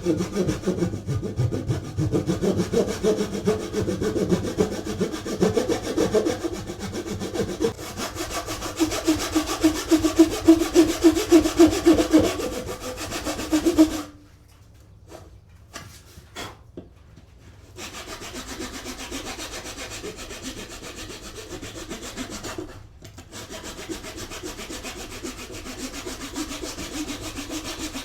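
Hand saw cutting wood in rapid back-and-forth strokes, stopping about halfway through. After a short pause with a few light knocks, quieter strokes on the wood resume.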